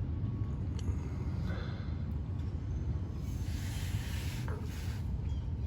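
Old oil draining from the truck's drain hole into a catch pan, a steady low rush with a brighter splashing hiss for about a second midway. The oil is a little burnt.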